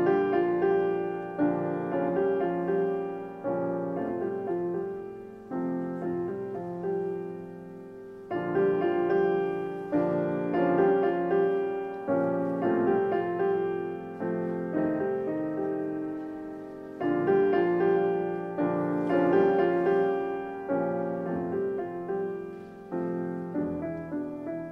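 Solo piano music, slow chords struck and left to die away.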